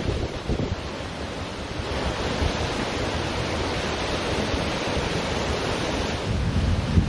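Ocean surf washing onto a beach, the hiss of the wash swelling about two seconds in, with wind buffeting the microphone as a low rumble, strongest near the end.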